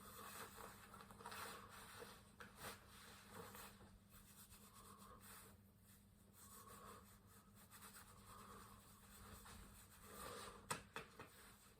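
Near silence with faint rustling and scratching handling noises, and one sharp click near the end.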